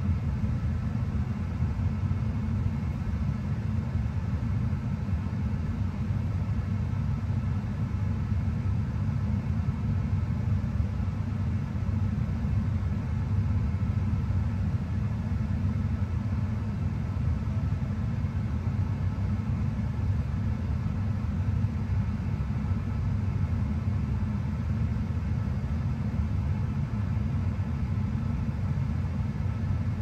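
Steady low rumble of a Tesla's cabin, even and unchanging, with a faint steady hum above it.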